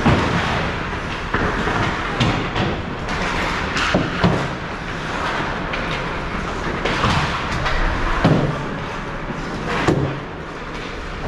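Ice hockey play close to the goal: skates scraping and carving the ice under a steady rink din, broken by several sharp knocks and bangs from sticks, puck and players hitting the boards.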